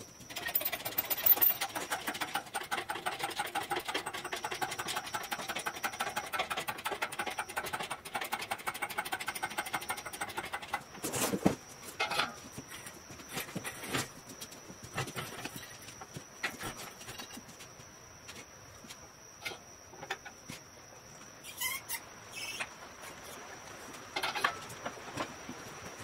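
Fast, continuous metallic rattling and clicking as a shop engine hoist carrying an engine is moved into place, then scattered clanks and knocks from about 11 seconds on.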